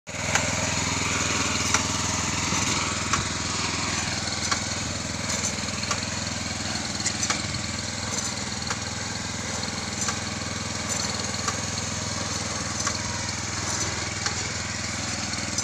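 Small engine of a ride-on vegetable transplanter running steadily as the machine moves along the bed, with a regular sharp click about every second and a half.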